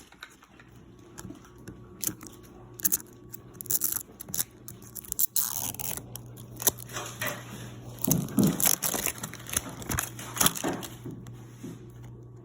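Plastic packaging of a Mini Brands capsule ball crinkling and tearing as it is unwrapped and opened, with irregular crackles and clicks that grow busier about halfway through.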